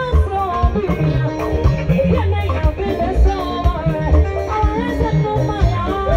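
Live band playing upbeat gospel music, with a steady bass line, regular drum strokes and wavering melody lines above.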